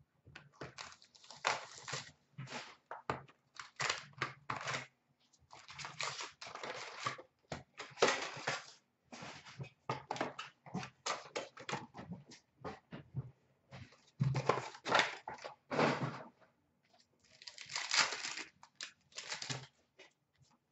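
Hockey card box and packs being opened by hand: irregular crinkling, tearing and rustling of wrappers, cardboard and cards, in close bursts with short pauses.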